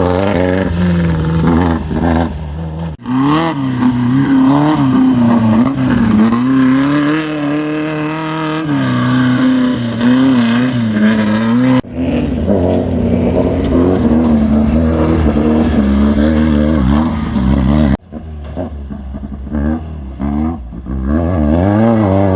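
Off-road race vehicle engines revving and running hard, their pitch rising and falling with the throttle. The sound changes abruptly three times, about 3, 12 and 18 seconds in, as one vehicle gives way to another.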